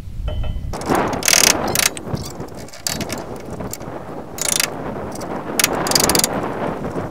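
Steel pieces and bolts of a hitch-mount log holder clinking and scraping as they are fitted together by hand on the hitch bar, in a few short bursts: about a second in, around four and a half seconds, and around six seconds.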